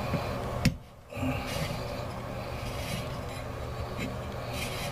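Hands turning an under-sink water shut-off valve closed: faint rubbing and scraping with a few small clicks, and one sharp click followed by a brief hush just under a second in.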